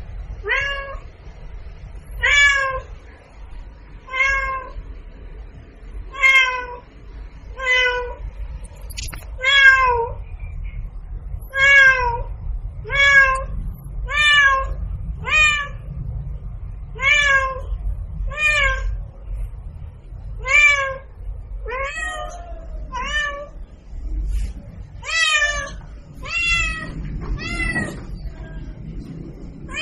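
A cat meowing over and over: about twenty short meows, each dropping in pitch, one every second or two, over a low steady hum.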